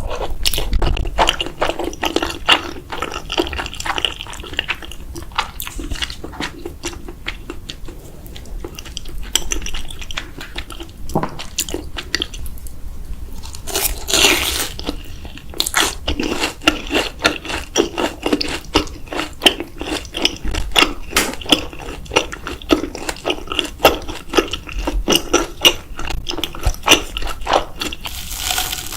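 A person eating with the microphone close to the mouth: steady chewing with many quick, wet clicks, and one longer, noisy sound about halfway through.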